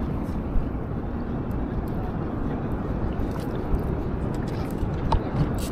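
Motorboat under way: a steady low rumble of its engine and the hull running through water.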